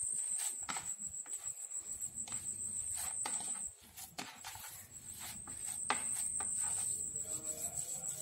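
Hands kneading and rubbing crumbled chhena against a plate, with repeated soft squishing and patting strokes. Over it runs a steady high-pitched trill that breaks off briefly about four seconds in and then resumes.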